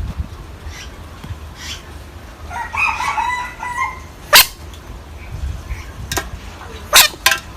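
A frog screaming: one wavering, drawn-out cry lasting about a second and a half, a little over halfway through. Three sharp, loud clicks follow, the first shortly after the cry and two close together near the end.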